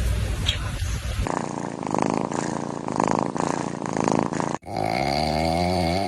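A sleeping cat snoring with a rattly, rapidly pulsing sound for about three seconds. After a sudden cut comes a long drawn-out voiced sound that rises and then falls in pitch.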